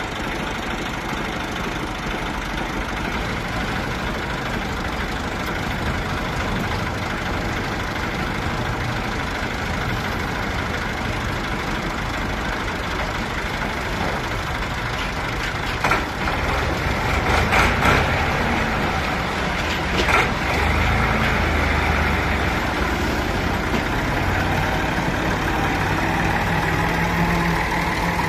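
Massey Ferguson 260 tractor's diesel engine running steadily, with a louder stretch and a few knocks about two-thirds of the way through.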